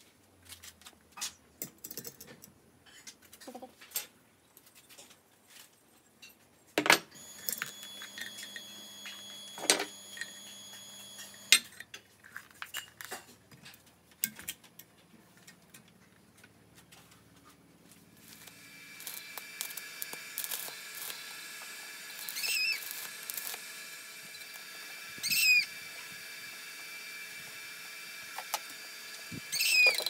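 Scattered knocks and clicks of metal parts being handled and set down on a wooden workbench. About two-thirds of the way through, a steady hum starts, with a few short squeaks over it.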